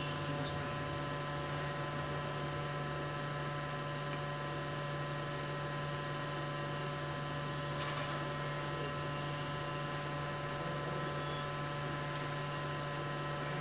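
Steady electrical hum: a constant low drone with several fixed higher tones above it, unchanging throughout.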